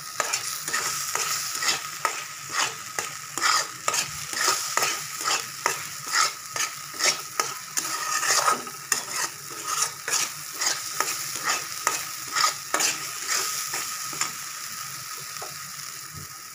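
Metal spatula stirring and scraping a thick ground masala paste in a metal kadhai in quick, regular strokes, over a steady sizzle of frying oil. The masala is being bhuna'd, fried down in oil. The stirring stops near the end, leaving the sizzle.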